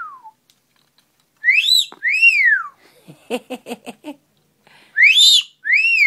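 Amazon parrot whistling a two-note wolf whistle twice: each time a rising note, then a higher note that rises and falls away. A short burst of quick chuckling pulses comes between the two whistles.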